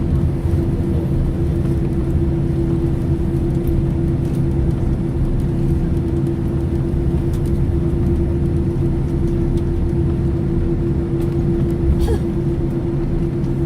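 Boeing 787 airliner noise: a steady low rumble with a constant hum and no change in pitch, with a faint tick about twelve seconds in.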